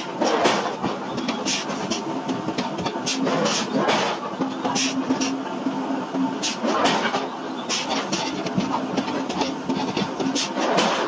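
Heavy forging-plant machinery running: a steady mechanical din with a low hum and irregular knocks every second or so.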